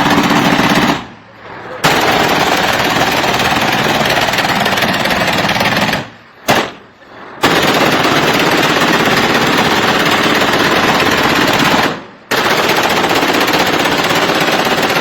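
Automatic gunfire in long continuous bursts, broken by short pauses about a second in, around six seconds in, and about twelve seconds in.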